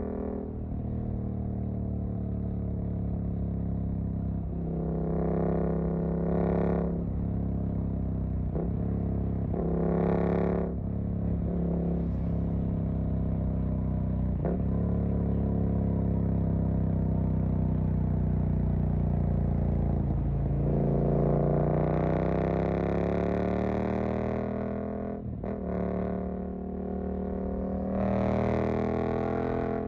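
Suzuki GSX-8S parallel-twin engine through a Jeskap EVO aftermarket exhaust, under way and accelerating. The engine note climbs and then drops sharply at each gear change, several times, with one long climb about two-thirds of the way through.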